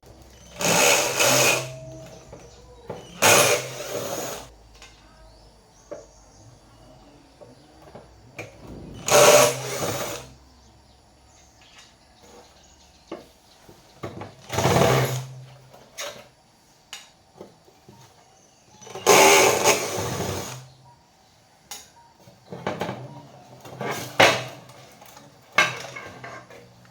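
A handheld power tool run in short bursts of about a second, eight times with pauses between, each burst a whirring hiss over a low motor hum.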